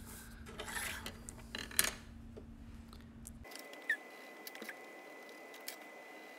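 Faint scratching of a colored pencil shading on paper, in a few scratchy strokes, with light ticks. The background hiss changes abruptly about halfway through.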